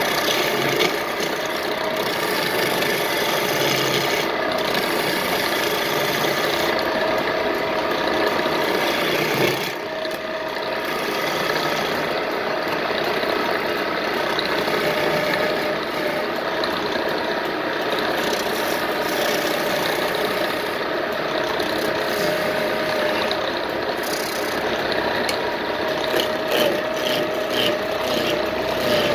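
Hand chisel cutting into a wooden bed leg spinning on a homemade wood lathe: a continuous scraping, rasping cut with a steady hum from the running lathe underneath. The cut eases off briefly about ten seconds in.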